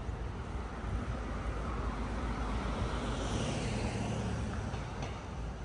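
A motor vehicle driving past on a city street: its engine and tyre noise swell, peak about three to four seconds in, then fade away.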